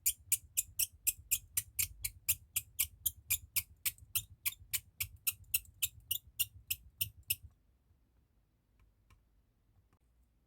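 A steady run of sharp, evenly spaced clicks, about four a second, stopping about seven and a half seconds in.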